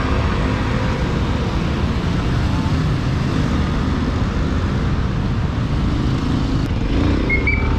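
Victory MRX 150 motorcycle's single-cylinder engine idling steadily, mixed with the rumble of surrounding city traffic. A few short high chirps come in near the end.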